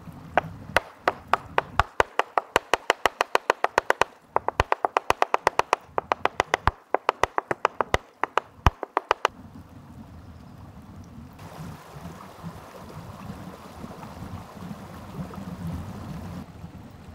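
A large kitchen knife chopping beef into mince on a wooden cutting board: fast, repeated knocks of the blade on the board, about five a second, with two brief pauses, stopping about nine seconds in. After that a rushing stream runs on its own, louder for a few seconds near the end.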